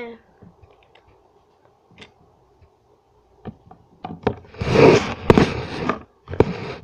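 Handling noise: a few faint clicks, then from about four seconds in loud rustling and sharp knocks as a hand brushes and grips right at the microphone.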